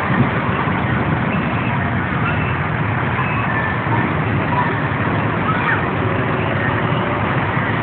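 Steady drone of several bumper boats' motors running as the boats circle the pool, with a few faint short high calls over it.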